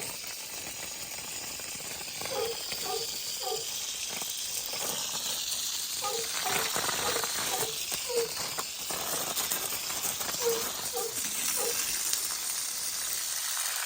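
A dog barking in short runs of two or three barks, several times, over a steady high hiss.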